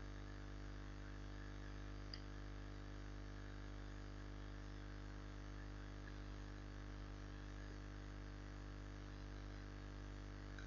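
Steady electrical hum and hiss from the recording's microphone and line, with one faint click about two seconds in.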